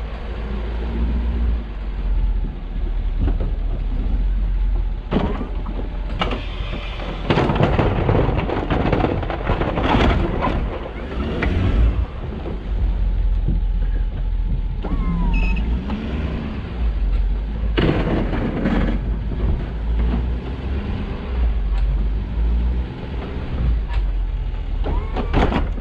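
Plow truck's engine running while driving, with a steady low road rumble, the engine pitch rising and falling, and several louder rushes of noise.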